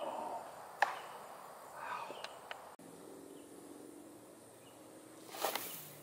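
Quiet woodland sound with a disc golf drive: the thrower's shuffling steps and a sharp snap about a second in. Later a low insect buzz sets in, with a short rustle near the end.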